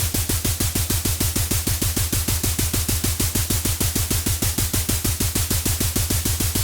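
Machine gun sound effect in sustained automatic fire, a steady even rhythm of about eight shots a second, each with a heavy low thump.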